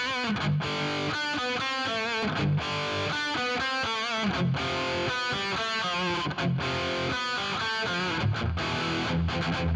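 Distorted electric guitar track playing rhythmic chords on its own, compressed by a 4:1 SSL G-Series bus compressor. It plays in turn through the SSL SiX mixer's built-in hardware compressor and the Waves SSL G-Master Buss Compressor plugin.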